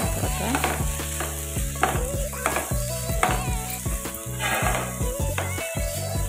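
Chopped onions and ginger-garlic paste sizzling in oil and ghee in a nonstick frying pan, stirred and scraped with a wooden spatula in quick repeated strokes.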